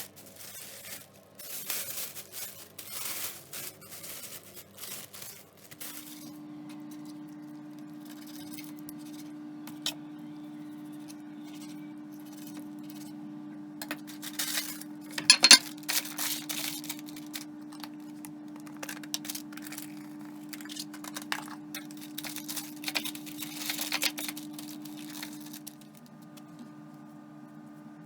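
Rustling and tearing at first, then a steady electrical appliance hum that starts about six seconds in and changes near the end, with scattered clinks and clatters of handled objects, the loudest about halfway through.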